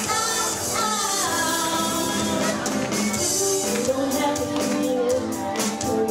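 A live pop song performed by a small acoustic band: two women's voices singing into microphones over acoustic and electric guitar, with percussion hits that come through more plainly in the second half.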